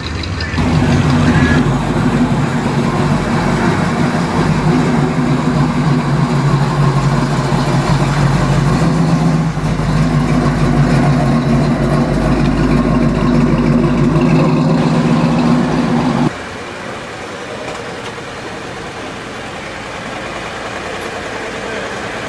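Engines of vintage and custom pickup trucks running as they drive slowly past, the sound changing at a few cuts. A quieter, steady engine sound follows for the last several seconds.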